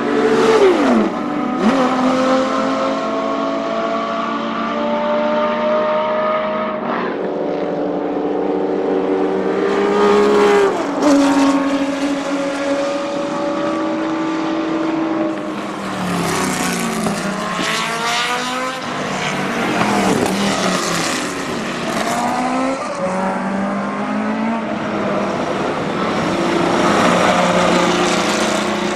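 Porsche 917 K race cars' air-cooled flat-12 engines at full throttle. The pitch climbs through the gears, drops sharply at each upshift, and falls in steep sweeps as cars go by, several times over.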